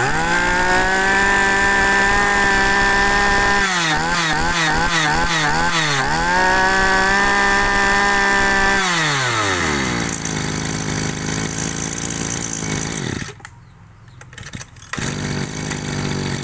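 Stihl FS 2200 brush cutter's small two-stroke engine, fitted with a two-needle carburetor, run at full throttle, blipped up and down about six times in quick succession, held high again, then let fall to idle about nine seconds in. The idle dips out briefly near the end.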